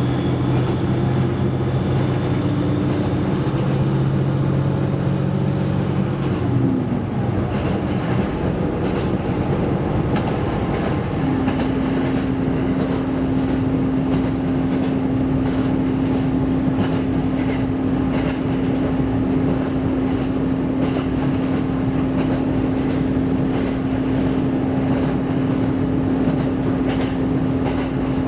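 Running sound of a KiHa 127 diesel railcar: a steady rumble of wheels on rail, with the hum and high whine of the drive underneath. About six seconds in, the hum and whine drop in pitch and fall away. From about eleven seconds a new steady hum sets in.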